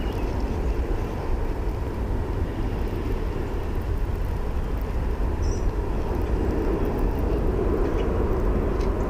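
Steady low rumbling noise with a faint steady hum above it, and no distinct events.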